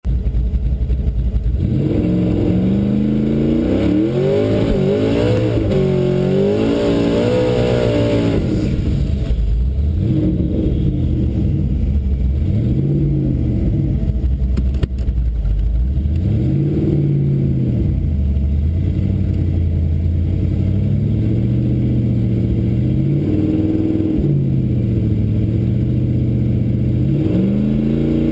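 Twin-turbo Toyota 1UZ V8 heard from inside the car's cabin, running with a lumpy idle and revved up and down again and again. A longer spell of high, wavering revs comes a few seconds in, there is a sharp click about halfway, and the revs climb steeply near the end.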